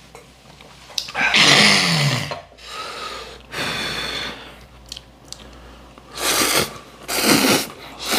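Ramen noodles being slurped noisily from chopsticks, in several loud slurps about half a second to a second long, with chewing between.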